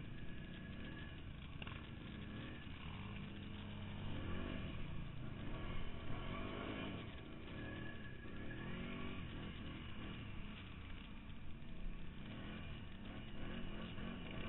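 Quad bike (ATV) engine running and revving hard, its pitch rising and falling again and again from about four seconds in.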